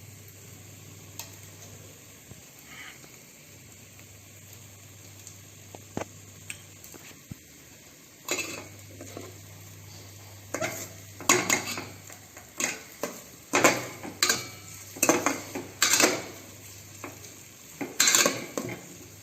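Spoon scraping and stirring in a pan of onions and ginger-garlic paste frying in oil, with a faint sizzle. The first eight seconds hold only the faint frying; then come quick, loud scrape after scrape of stirring.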